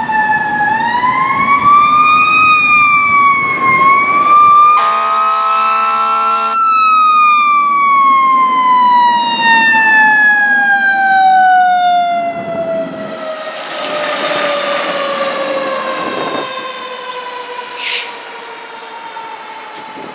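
Fire engine siren wailing. It climbs and dips in pitch over the first few seconds, then falls slowly and steadily for the rest of the time. About five seconds in, a horn blast of a couple of seconds sounds over it.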